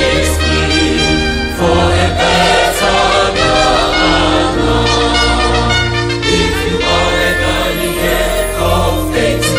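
Mixed choir singing a gospel song in full voice over a band with a steady bass and regular drum strokes, and a trumpet playing along.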